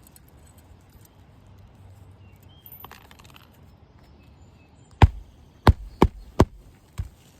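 Five sharp blows of a hammer driving roofing nails into an asphalt shingle, in quick succession, the last one lighter.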